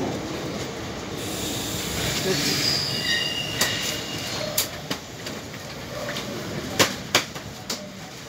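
Passenger train coaches rolling slowly along the rails with a steady rumble. The wheels give a brief high squeal about two to three seconds in, then a few sharp clacks on the track, the loudest near the end.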